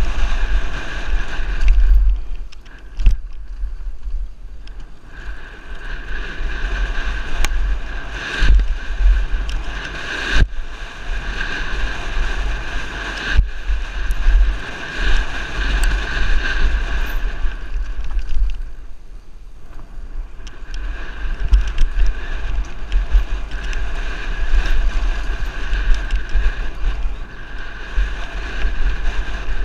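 Downhill mountain bike ridden fast down a dirt and gravel trail, heard from a helmet-mounted camera: heavy wind buffeting on the microphone over a steady rush of tyres on loose dirt, with scattered sharp knocks and rattles from bumps. It eases off briefly twice, a few seconds in and again past the middle.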